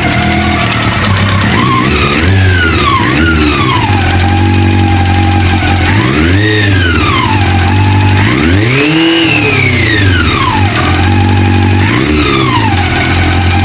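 Motorcycle engine idling and revved five times with the throttle, each rev rising and falling back to idle; the middle revs are the highest and the one about nine seconds in is the longest. The engine is running after its valve clearance was reset with a new shim to cure hard starting, and it fired on one press of the starter.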